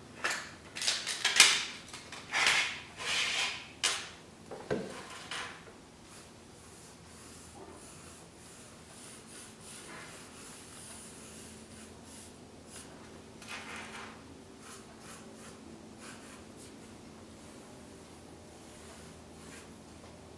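A run of rough rubbing and scraping strokes, about six of them loud in the first five seconds, then fainter scattered rubbing with one more stroke about fourteen seconds in.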